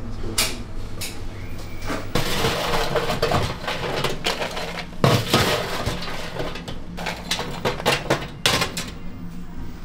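Snack-bar kitchen clatter: metal utensils, dishes and trays knocking and clinking, with a few seconds of dense scraping, rustling noise about two seconds in as food is dished up.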